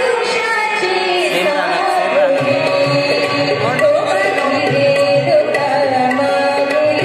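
Music: a melodic line that bends and glides between notes over steady held tones.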